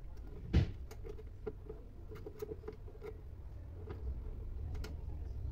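Light clicks and taps of small metal parts being handled while the pedal linkage rod is fitted to a sewing-machine servo motor, with one louder knock about half a second in.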